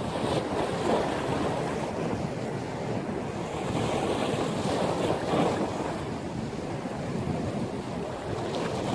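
Storm surf washing and breaking, with strong wind buffeting the microphone; the waves swell louder twice, about a second in and around the middle.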